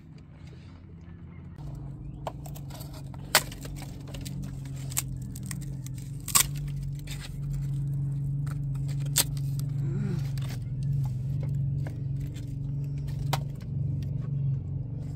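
Split wooden sticks knocking and clattering against each other as firewood is laid into a clay tandoor. There are a few sharp clacks, over a steady low hum.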